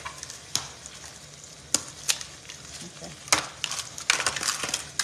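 Egg mixture with onions and peppers frying in a skillet with a steady sizzle. Over it come sharp cracks and clicks of eggshells being broken over a bowl, scattered at first and then several in quick succession near the end.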